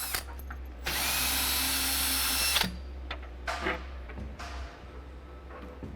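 Power drill running in one burst of about a second and a half, its whine rising as the motor spins up, backing out fasteners from the bed's footboard. A few light knocks follow.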